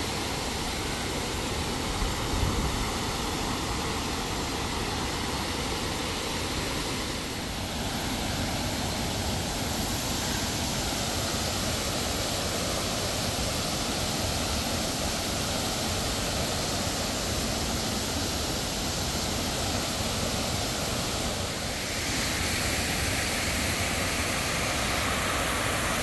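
Water rushing steadily over the stepped concrete tiers of a seven-tier man-made waterfall, a continuous even noise of falling water that grows slightly louder and brighter about 22 seconds in.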